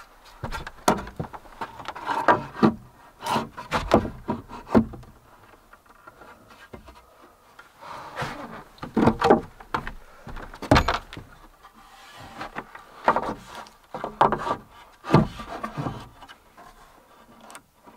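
Wooden boards being handled and fitted: repeated knocks, clatter and scraping of board on board as a plank is set down on the wooden floor and pushed into place against the wall, in three bouts.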